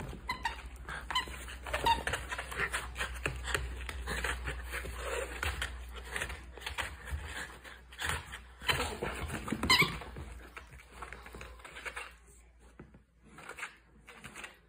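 Miniature dachshund playing rough with a plush eggplant toy: a busy run of knocks, scrabbling and rustling, with a few short high squeaks near the start and again about ten seconds in. It goes quieter for the last couple of seconds.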